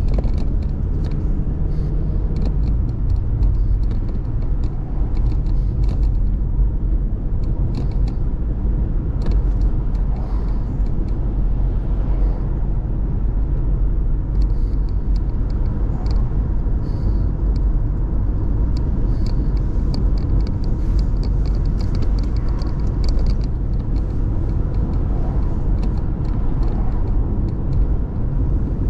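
Steady road and engine rumble of a car driving, heard from inside the cabin, with faint scattered ticks over it.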